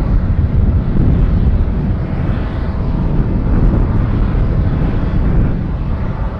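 Jet airliner engines: a steady low rumble with a faint whine.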